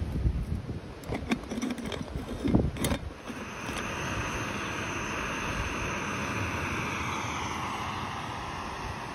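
A few clicks and knocks from coffee making with an aluminium moka pot, with wind rumbling on the microphone, then from about three seconds in the steady hiss of a gas canister stove burning under the moka pot, easing slightly near the end.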